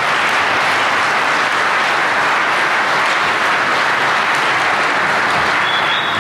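Audience applause in a large conference hall, a steady dense clapping that begins to fade near the end.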